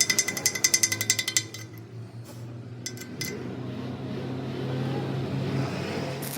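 Rapid ringing metal-on-metal strikes, about ten a second, stop about a second and a half in, followed by a steady low hum with a few clicks.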